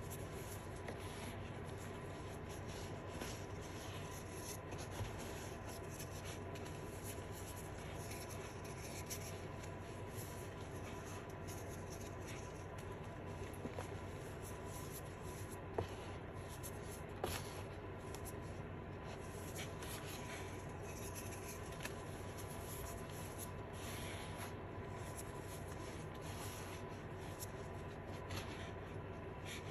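Fingers crumbling, squeezing and rubbing blue reformed chalk and chalk powder in a plastic tub: a soft continuous crunching and scraping, with a couple of sharper snaps about halfway through.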